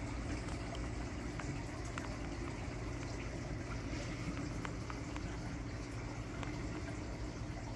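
Steady bubbling and trickling water from a large reef aquarium's circulation, with a low hum underneath and a few faint scattered ticks.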